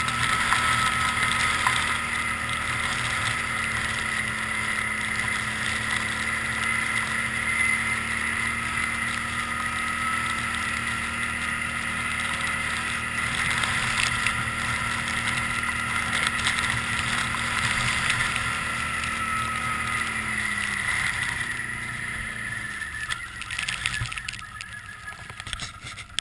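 Can-Am Outlander 800 Max ATV's V-twin engine running at a steady speed with a high whine. About three-quarters of the way through its note drops and fades away, leaving quieter scattered knocks.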